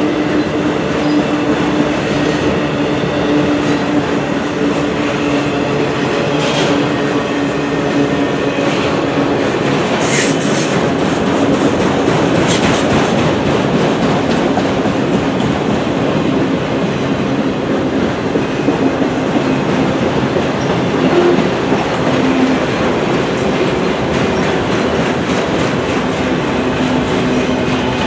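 Autorack freight cars rolling past at close range: a steady rumble of steel wheels on the rails, with a held ringing tone over it. A few brief sharp high noises cut through, the strongest about ten seconds in.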